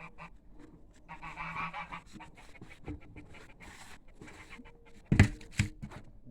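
A harsh, honking animal call about a second in, then two heavy thumps close together near the end, the loudest sounds here, fitting tires being dropped into place on a tire wall.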